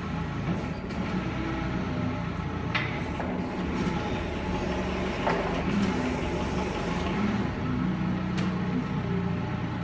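Cat 2C6000 propane forklift's engine running steadily at idle, with a couple of brief clicks over it.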